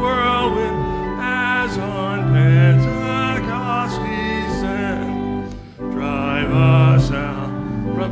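Hymn singing: a voice with strong vibrato over sustained organ chords, with a short break between phrases a little after halfway.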